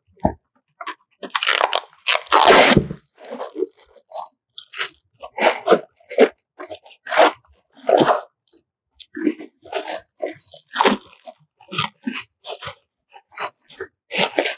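Plastic packaging wrap crinkling and crackling in irregular bursts as it is pulled off a new roll of printer film, loudest about two seconds in.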